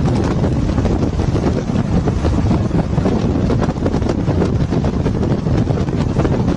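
Wind buffeting the microphone over the steady road and engine noise of moving vehicles, a loud, rough rumble.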